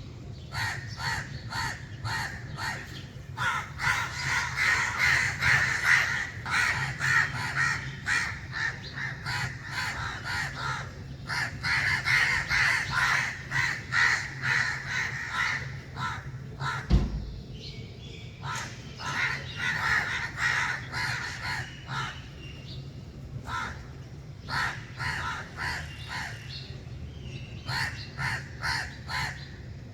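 A flock of crows cawing, many short caws overlapping and coming in waves that thicken and thin out, over a steady low rumble. A single low thump about seventeen seconds in.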